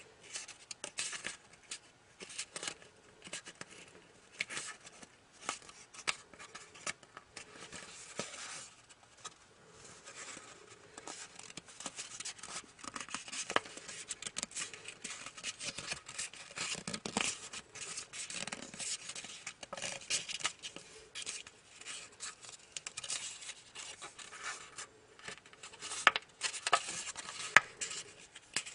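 Sheet of origami paper being folded and creased by hand: irregular crinkling, rustling and rubbing of the paper under the fingers, with a few louder crackles near the end.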